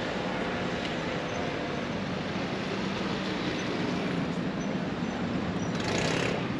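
City street ambience: a steady hum of traffic from passing vans and cars, with a brief hiss about six seconds in.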